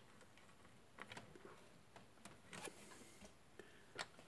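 Faint, scattered light clicks and taps of an Intel boxed CPU cooler's plastic push-pin fasteners being worked into the motherboard.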